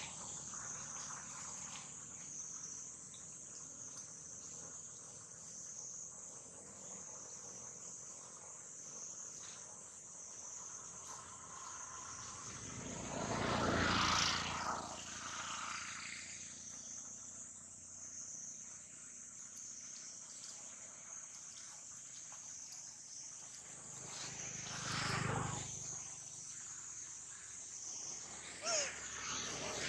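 Steady high-pitched outdoor insect chorus, with a broad rushing sound that swells and fades twice, once around the middle and again later on.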